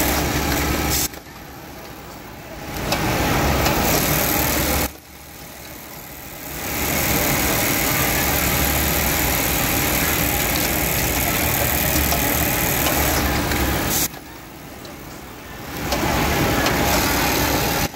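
Automatic bartack sewing machine running at speed with a steady, dense stitching sound. It cuts off suddenly three times (about a second in, about five seconds in, and about fourteen seconds in), and each time it ramps back up over a second or two as a new sewing cycle begins.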